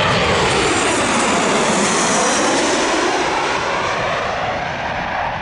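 Boeing 737 airliner's twin jet engines passing low overhead on landing approach: a loud rushing roar with a whine that falls in pitch as the plane goes over, easing off slightly near the end.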